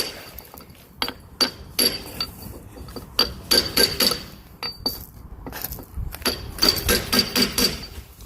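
Hammer tapping on the steel bearing race of a planetary drive hub to loosen it: about fifteen sharp metal-on-metal strikes in irregular bursts, each with a clear ringing note.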